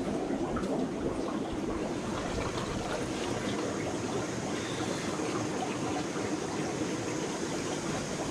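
Running water trickling and splashing steadily, with a few faint clicks.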